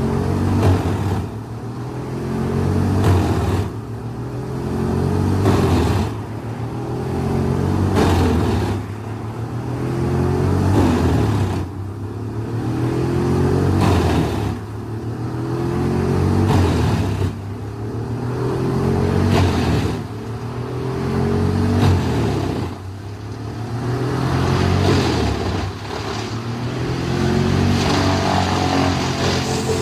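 Wood chipper's engine running hard under load, its pitch sagging and recovering about every two seconds as wood is fed in, with short sharp cracks of the wood being chipped.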